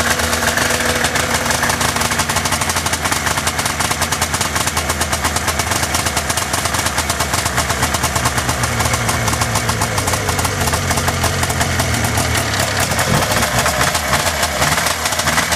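Arctic Cat Puma 340 snowmobile's two-stroke engine idling steadily with rapid, even firing pulses, just after a cold start and still cold.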